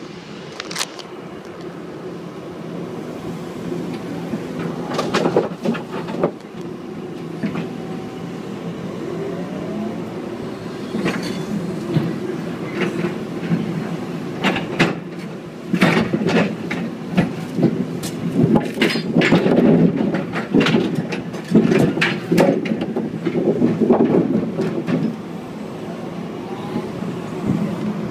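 John Deere excavator's diesel engine running steadily under hydraulic load, with repeated knocks and clatter as the grapple thumb grabs and lifts wooden railroad ties out of the gondola. The knocks grow thicker through the second half.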